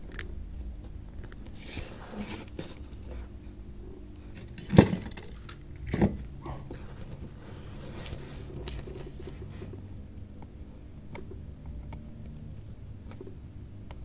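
Small metallic clinks and taps from soldering tools being handled on a workbench, with two louder knocks about five and six seconds in.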